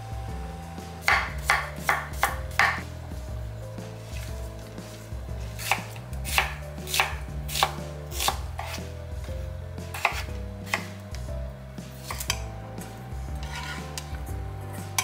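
Kitchen knife slicing an onion on a wooden cutting board: crisp knocks of the blade meeting the board, in runs of several even strokes with pauses between.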